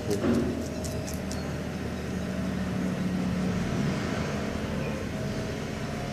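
A steady low mechanical hum, with a few short, sharp clicks in the first second and a half.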